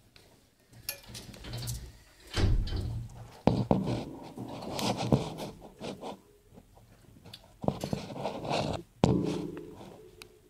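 Scattered knocks, scrapes and short rustling bursts in a dog kennel, with a few sharp clicks, as a dog noses about the floor for thrown treats.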